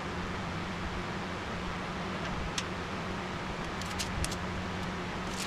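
Steady low hum in the background, with a few faint light clicks from a tape measure and marker being handled against a steel air compressor tank.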